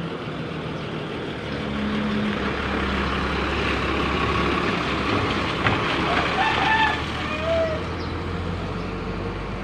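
A motor vehicle passing, its low engine rumble swelling over a few seconds and then easing off, with a few short chicken clucks about six to seven seconds in.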